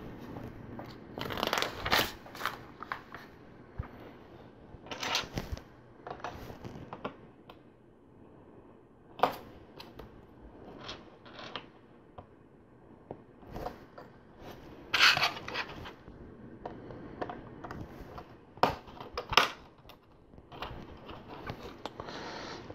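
Plastic LEGO bricks being handled and pressed together, with irregular sharp clicks and soft rustling as pieces are picked out and snapped into place.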